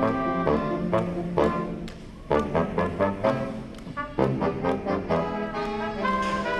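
Brass music playing a tune, its notes changing throughout, with a short lull about two seconds in.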